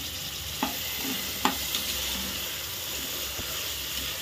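Peas, soya beans, onion and freshly added chopped tomato sizzling in hot oil in an aluminium pressure cooker while a metal ladle stirs them. There are a few sharp scrapes of the ladle on the pot in the first half.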